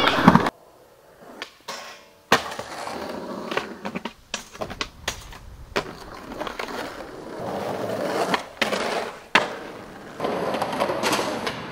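Skateboard wheels rolling on concrete, broken by several sharp clacks of the board hitting the ground.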